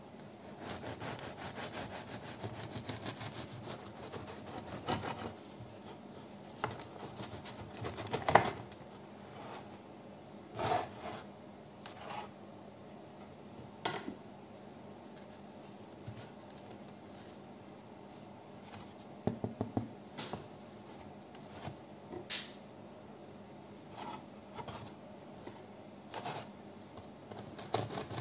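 Bread knife sawing through a crusty loaf of burnt-wheat-flour bread, with rough scraping strokes for the first several seconds, then separate sharp crackles of the crust.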